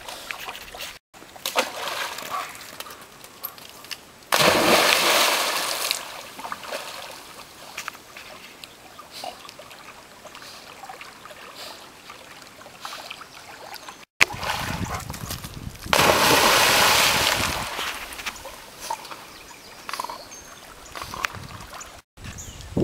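Water splashing and sloshing as a yellow Labrador retriever goes into and swims through a pond, with two loud sudden splashes, one about four seconds in and another about sixteen seconds in.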